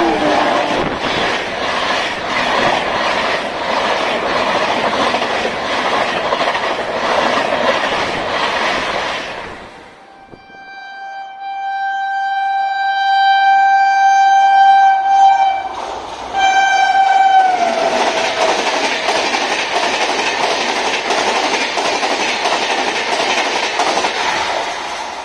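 A WAP-7 electric locomotive and its double-decker coaches run past at high speed, with a steady rush of wheels on rail and light rhythmic clicking over rail joints. After a break, the locomotive's horn sounds one long blast that grows louder as the train approaches. A second, shorter blast drops in pitch as it passes, and the rush of the passing coaches follows.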